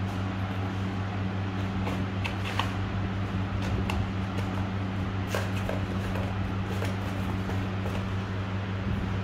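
A steady low hum runs underneath, with scattered light scratches and taps as kittens paw at each other and scuffle a small cardboard box across a marble floor.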